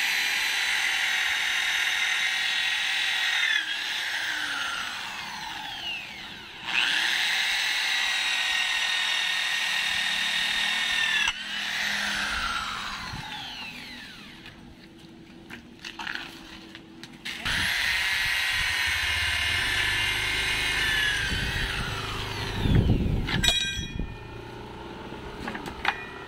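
Corded electric hand drill boring a larger hole through a 2x2 steel angle bar, running in three long steady bursts, its whine falling away each time the motor spins down. Near the end come a few low knocks and clicks.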